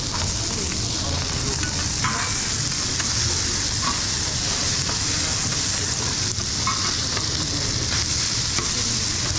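Rice and vegetables sizzling on a flat-top griddle while being tossed and turned with two metal spatulas, with a few short scrapes of the steel blades across the griddle plate.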